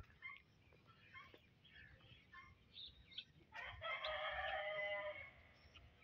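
A rooster crows once, about three and a half seconds in, a single call lasting under two seconds. Faint, scattered bird chirps sound around it.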